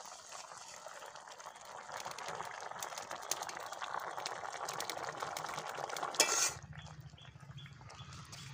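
Metal spatula stirring a simmering curry in a metal kadai, with many quick clinks and scrapes against the pot over the bubbling liquid. The stirring ends about six seconds in with one sharp scrape, leaving a low steady hum.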